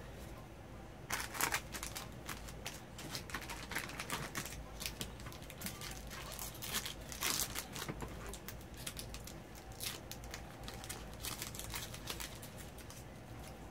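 Foil booster pack wrapper crinkling and trading cards being handled. A dense, irregular run of crackles and clicks, loudest about a second in and again around seven seconds in.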